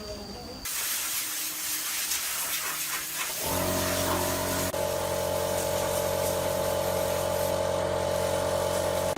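A steady hiss, joined about a third of the way through by the steady hum of a running motor or engine that keeps an even pitch.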